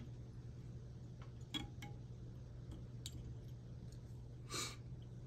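Faint small clicks and a short rustle from hands wrapping tying thread with a bobbin onto a hook held in a fly-tying vise, over a low steady hum.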